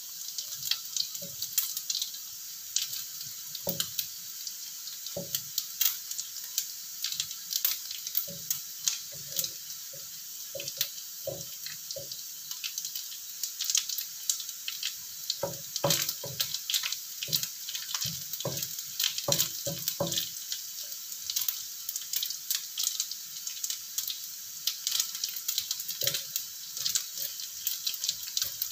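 Tempe cubes and small anchovies frying in oil in a wok: a steady sizzle with crackles, while a wooden spatula stirs and scrapes them with frequent irregular knocks against the pan.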